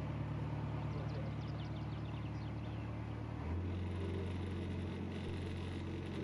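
Narrowboat's diesel engine running steadily under way, its low note changing about three and a half seconds in. A small bird gives a quick run of high chirps about a second in.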